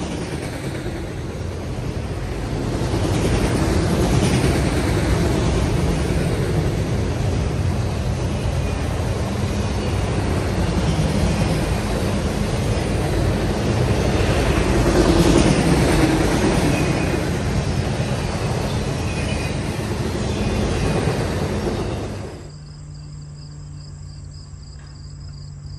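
Long freight train of autorack cars rolling past at trackside: a steady, loud rumble and rattle of steel wheels on the rails. About 22 seconds in it cuts off suddenly to a much quieter steady background.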